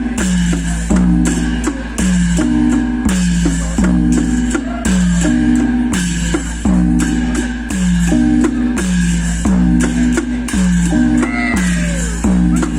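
Music: a plucked-string riff of short low notes repeating at a steady beat, with drums under it.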